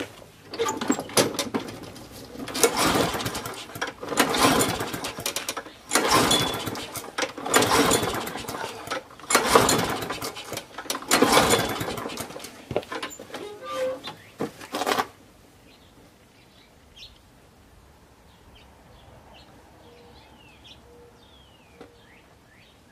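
John Deere 14SZ walk-behind mower's small primer-start engine running on its freshly cleaned carburetor, its sound rising and falling in surges about every one and a half to two seconds. The engine stops about fifteen seconds in.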